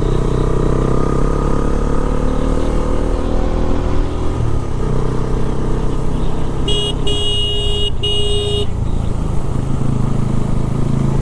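Motorcycle riding along, engine and road noise steady, the engine note easing down over the first few seconds. About seven seconds in, a vehicle horn sounds three times: one quick toot, then two longer honks.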